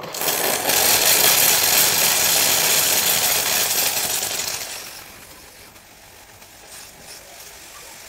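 Saachi espresso machine's steam wand venting steam as the steam knob is opened, a loud steady hiss that starts suddenly, then drops to a fainter hiss about five seconds in. The steam is being run through the machine to flush descaling solution out of the tank and boiler.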